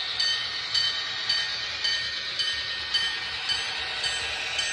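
The sound system in an HO-scale MTH GP38-2 model diesel locomotive plays a diesel engine running through its small onboard speaker, a steady, tinny hiss and hum. Sharp clicks come in about twice a second as it rolls along the track.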